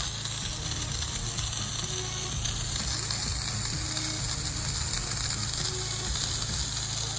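Gasoline pressure washer engine running steadily under the constant hiss of a high-pressure water jet spraying from the wand.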